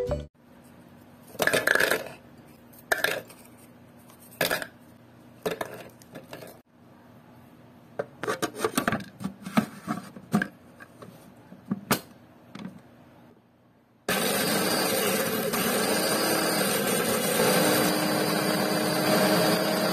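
A series of separate clatters and knocks as biscuits go into a plastic food processor bowl. About two thirds of the way through, the food processor's motor starts and runs steadily, its blade grinding the biscuits into crumbs.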